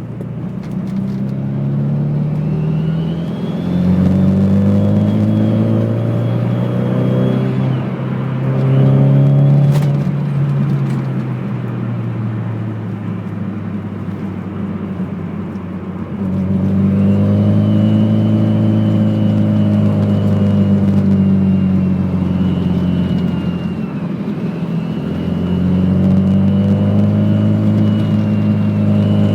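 Turbocharged Nissan SR20 engine pulling under load, with a thin high whine riding over the engine note while it is on boost. The whine comes in about two seconds in and again around seventeen seconds in, during two long pulls.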